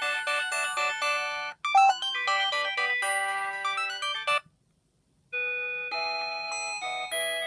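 Polyphonic LG C1100 ringtones in .mmf format playing on a Samsung SGH-P910, in a Yamaha SMAF-style synth sound of bright, chiming tones. One tune ends about four and a half seconds in, and after about a second of silence the next ringtone begins.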